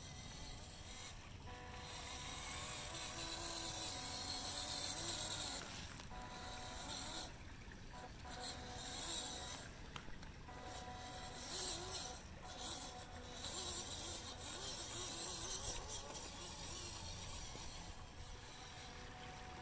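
Small electric RC crawler van's motor and gears whining as it drives, the whine dropping out briefly a few times as the throttle eases, over a hiss of water and wet tyres on rock as it crosses a shallow creek.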